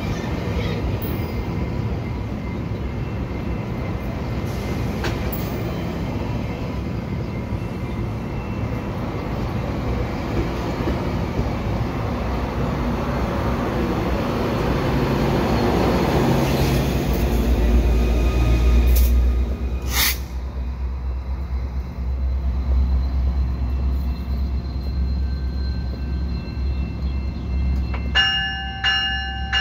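Bombardier multilevel commuter coaches rolling past close by, a steady rumble of wheels on rail that builds to its loudest about two-thirds of the way in and deepens into a heavy low rumble. Near the end a bell starts ringing in steady repeated strokes.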